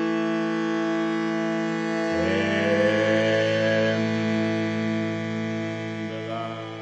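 Instrumental music: a steady droning bed of held notes with a plucked string instrument, one note sliding upward about two seconds in, the whole fading out near the end.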